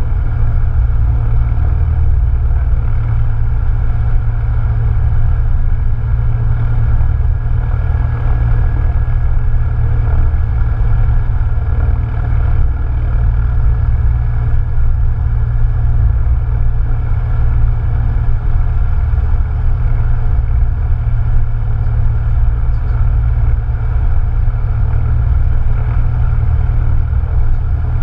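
Cessna 172N's four-cylinder Lycoming O-320 piston engine and propeller running at a steady speed: a loud, even, low drone.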